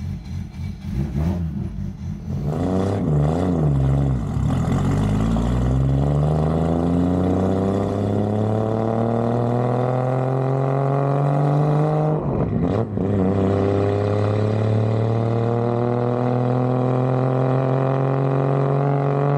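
Nissan Skyline GT-R R33's RB26DETT twin-turbo straight-six pulling away. It starts as a low, uneven rumble, then the engine note climbs gradually in pitch for several seconds. The note breaks briefly about twelve seconds in, then carries on, steady and slowly rising.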